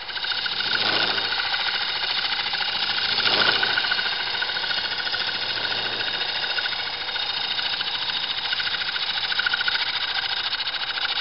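Wood lathe running with a cutter on a compound rest turning a block of wood: a steady, fast mechanical rattle, swelling louder about a second in and again about three and a half seconds in.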